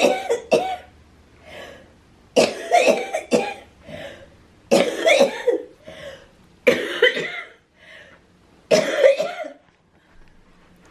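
Coughing fits from a person with cystic fibrosis: five hard bouts of two or three coughs each, about two seconds apart, with a breath drawn between them, stopping shortly before the end.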